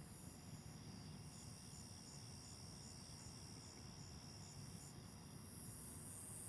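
Night insects calling: a steady high chorus, with one insect chirping evenly about three times a second. A low steady rumble lies underneath.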